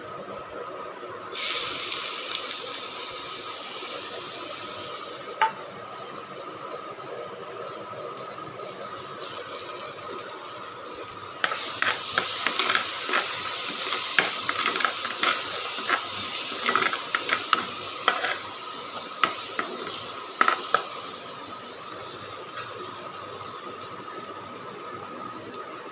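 Ginger-garlic paste dropped into hot butter and whole spices in a kadai: a sudden sizzle about a second in that settles into steady frying. From about halfway, the sizzle grows louder with quick clicks and scrapes of a spatula stirring the paste, then eases off near the end.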